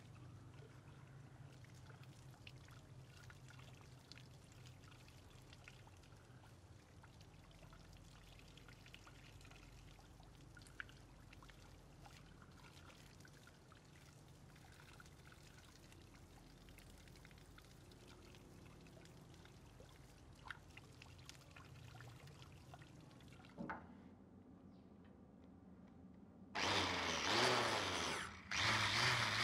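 Water from a garden hose pouring and trickling over a steel knife blade, a faint steady splashing. Near the end a powered wire wheel starts scrubbing the blade, much louder, with a short break.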